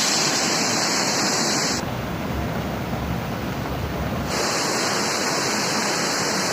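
Steady rushing of a waterfall. For a couple of seconds in the middle, wind rumbles on the microphone.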